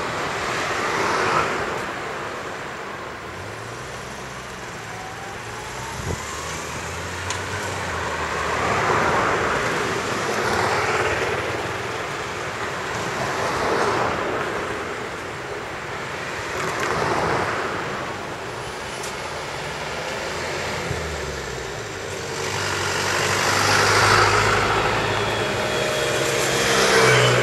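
Road traffic: vehicles passing one after another, each swelling and fading, over the low hum of engines. The loudest pass comes about three-quarters of the way through.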